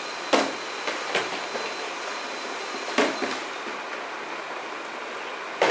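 Hollow plastic storage baskets and a plastic rack frame knocking and clattering as they are handled and fitted together: a few sharp knocks, the loudest near the end, over a steady rushing background noise.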